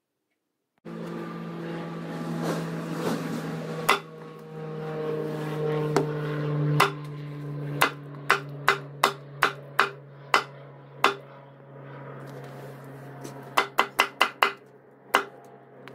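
Restored antique butcher's cleaver chopping through a melon and striking the wooden block beneath it: a series of sharp, irregular chops, with a quick run of about five near the end. A steady low hum sits underneath.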